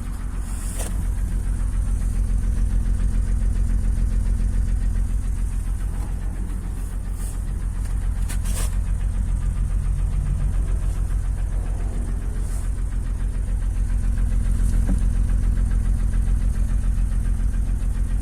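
Acura MDX's V6 engine running with a steady, rapid knock.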